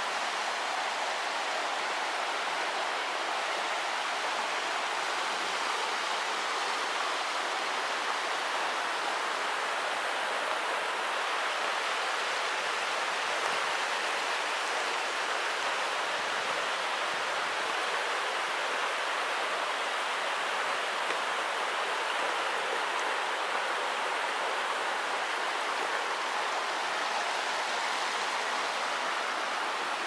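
River water running over rocks in shallow rapids, a steady, even rush.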